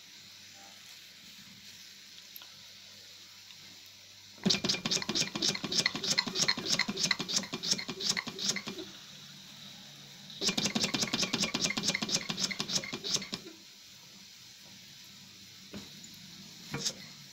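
Scratch-built model steam engine running in two short spells of rapid, even exhaust chuffing with a metallic clatter, each lasting a few seconds and stopping abruptly, with a few lone clicks near the end. It is a wet engine running on very wet steam and leaking at its transfer ports.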